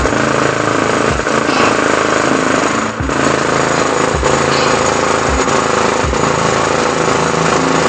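Small carpet-covered DIY subwoofer playing bass-boosted music at high volume while sitting in a pile of Philippine peso coins. The coins buzz and rattle against each other, and several deep bass drops sweep downward.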